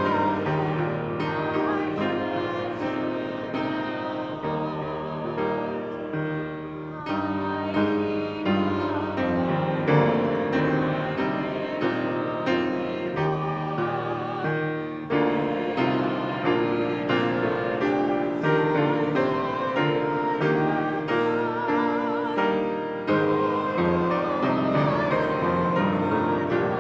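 Singing with piano accompaniment, the voice holding long notes with vibrato.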